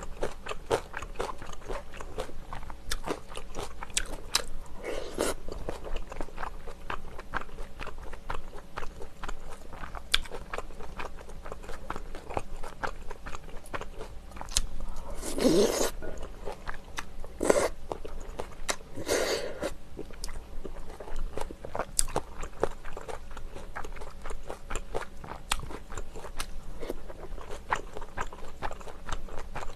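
Close-miked chewing of rice cake and dumpling soup: a steady run of wet mouth clicks and smacks, with three louder, longer wet mouth sounds about halfway through.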